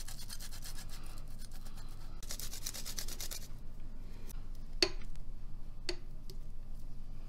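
Garlic cloves grated on a flat stainless-steel hand grater: a quick, rhythmic rasping of strokes that stops about halfway through. Two sharp clicks follow about a second apart.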